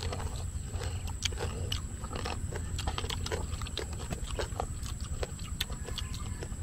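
Two people chewing crispy fried pork jowl: the crackling skin crunches in short, irregular crunches a couple of times a second.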